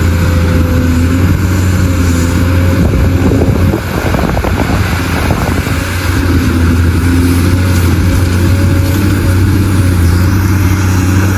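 Heavy diesel engine of mining machinery running steadily, a deep even hum. For a couple of seconds in the middle it turns rougher and a little quieter.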